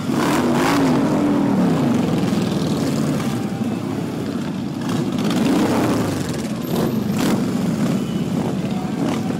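Motorcycle engines running in street traffic, their pitch rising and falling as bikes rev and pass, with a few short sharp blips.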